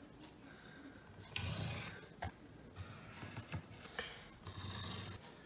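Faint scraping of a pencil drawing lines along a metal square on a wooden board, with the square sliding and clicking on the wood. A longer scrape comes about a second and a half in, a sharp click just after, a few light ticks, and another scrape near the end.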